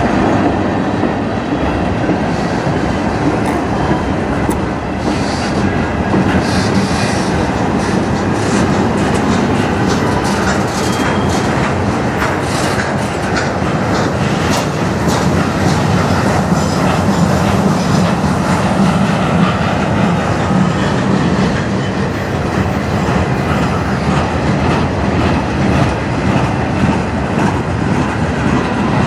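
Freight cars of a mixed manifest train rolling past: a loud, steady rumble of steel wheels on rail, with rapid clicking and clattering as the wheels pass over rail joints.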